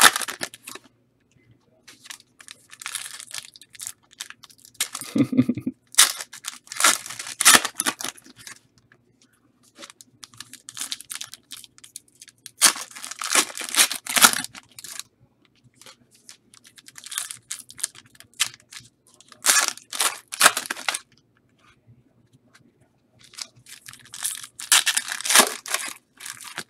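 Trading-card pack wrappers being torn open and crinkled in a series of separate bursts, with the cards handled between them.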